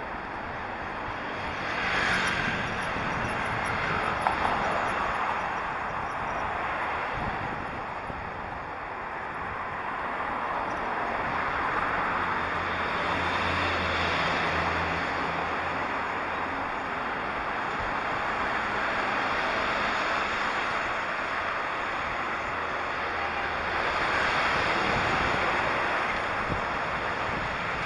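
Wind rushing over a helmet-mounted camera's microphone while riding along a street, with passing traffic; the rush swells and fades over several seconds, and a low engine hum of a passing vehicle rises about 12 to 16 seconds in.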